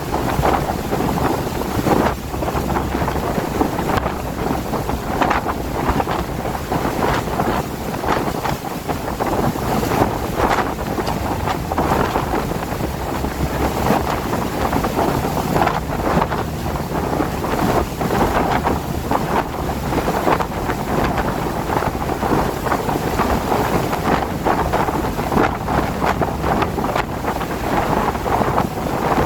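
Wind and rain in stormy weather: a continuous rushing noise with gusts buffeting the microphone.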